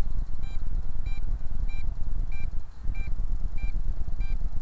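Radio transmitter beeping: short high-pitched beeps repeating about every 0.6 s, from a Bugs 8 controller bound to an MJX Bugs 3 drone, the mismatch being why it beeps. Under it, a steady low rumble.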